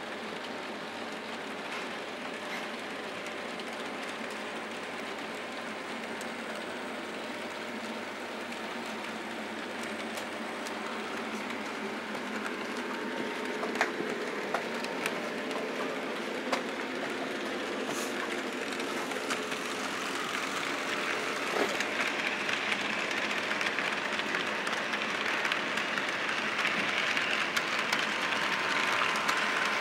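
HO-scale model trains running on the layout's track: a steady whir of small electric motors and rolling wheels with scattered clicks over the rail joints, growing louder through the second half as a train comes closer.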